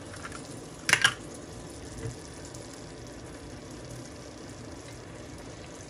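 Vegetable stew of potatoes and aubergine in tomato sauce simmering softly in a frying pan. A sharp double knock about a second in, and a small tap a second later.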